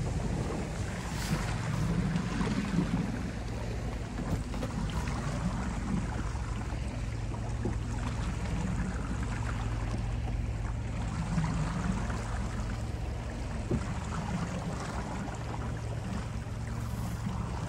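Small open boat's motor running steadily with a low hum as the boat moves slowly over calm water.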